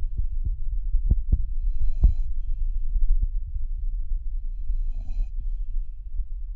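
Newfoundland puppy snoring in its sleep: two rasping snore breaths, about two and five seconds in, over a steady low rumble, with a few sharp knocks in the first two seconds.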